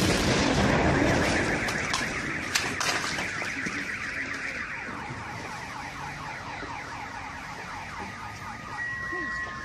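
Road crash: one sudden loud impact, a few sharp clicks of debris over the next couple of seconds, and a rapid warbling tone that fades slowly, with steady beeping tones near the end.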